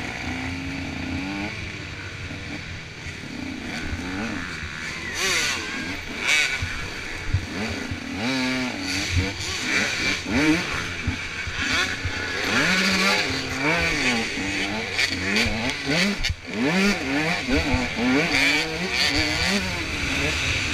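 Dirt bike engine revving hard and falling off over and over, its pitch climbing and dropping every second or two as the bike is ridden through the gears, with wind noise over it.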